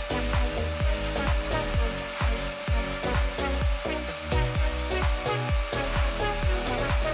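Background music with a steady beat, over a small CNC machine's spindle running steadily as its end mill cuts a circular pocket into a wooden board.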